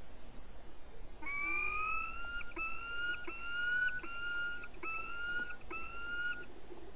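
Peregrine falcon calling: a series of six drawn-out, slightly rising whining notes starting about a second in, the first the longest and the rest shorter and evenly spaced.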